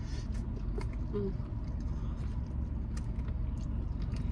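Steady low rumble of an idling car heard inside the cabin, with scattered small clicks and mouth sounds of someone eating chicken wings, and a brief vocal hum about a second in.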